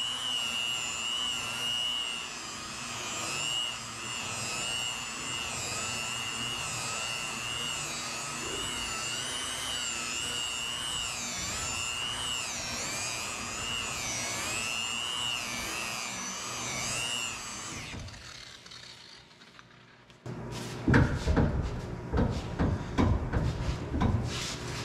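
Electric rotary polisher with a foam pad buffing fine machine polish into car paint, its motor whine wavering in pitch as the pad is pressed and eased. About three-quarters of the way in it winds down and stops, and after a short lull come a series of loud rubbing strokes as the polish is wiped off with a towel.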